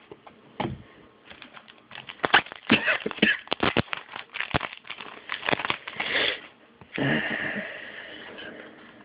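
Trading cards being handled and flicked through one after another: a quick run of sharp clicks and rustles, then a longer rustle about seven seconds in.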